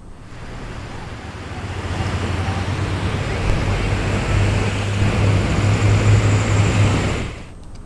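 Vehicle engine hum with rushing, splashing floodwater as a car drives through water flowing across a road. The noise builds over the first couple of seconds and cuts off suddenly near the end.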